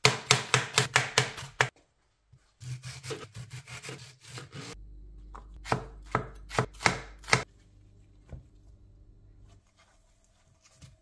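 Chef's knife cutting vegetables on a cutting board. First comes a fast run of chopping strokes through iceberg lettuce, then after a short pause a tomato is sliced, with several separate sharp knocks of the blade on the board. The cutting stops for the last few seconds.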